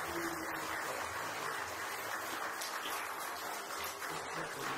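Congregation applauding, a steady patter of many hands clapping.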